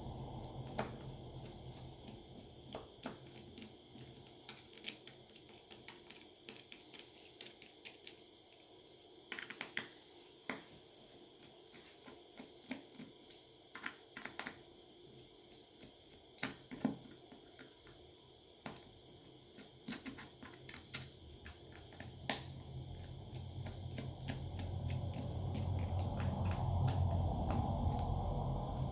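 Irregular small clicks and taps of hand tools such as a screwdriver and tweezers working on an opened Samsung Galaxy S9 phone. A low steady hum underneath grows louder over the last few seconds.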